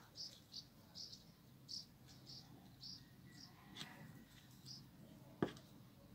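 Very quiet background with faint, short high-pitched chirps repeating irregularly every third to half second, and a single sharp knock about five and a half seconds in.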